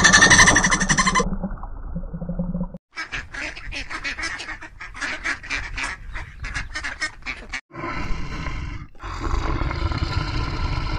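Ducks quacking in a quick run of short calls. Before them, a loud high buzz that cuts off about a second in, and after them a rougher animal sound that carries on to the end.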